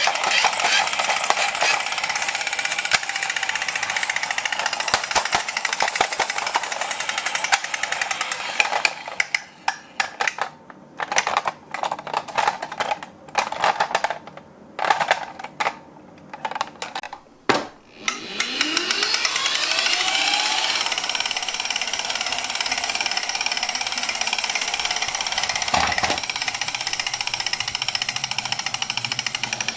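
Toy minicars running on a hill track: a fast buzzing mechanical rattle, made of very rapid clicks, that breaks into short stop-start bursts midway and then runs steadily again. Faint rising and falling tones come through over it in the later part.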